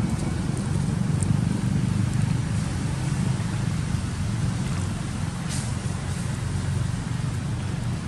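Steady low rumble of outdoor background noise, with a couple of faint brief ticks about a second in and again past the middle.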